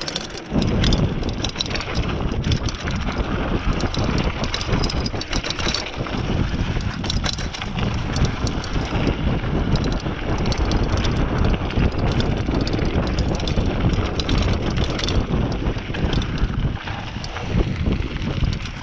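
Mountain bike riding fast down a dirt trail: wind buffeting the microphone, tyres rolling over dirt, and the bike rattling and clattering over bumps.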